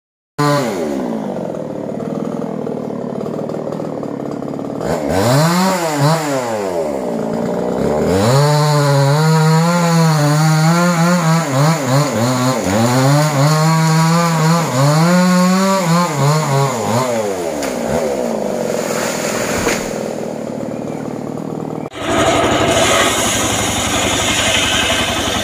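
Two-stroke chainsaw revving up and down, then held at high revs for several seconds as it cuts into teak wood, easing back to idle. About 22 seconds in, it gives way abruptly to the steady engine noise of a homemade sawmill.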